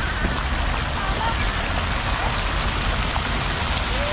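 Steady splashing and rushing water from a plaza fountain, an even rain-like hiss. Faint voices come through in the background.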